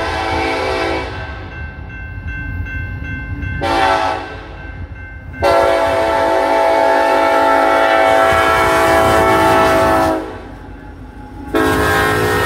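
Freight locomotive air horn blowing for a grade crossing over the low rumble of the approaching train: a blast ends about a second in, then a short toot, a long blast of about five seconds, and another blast starting near the end.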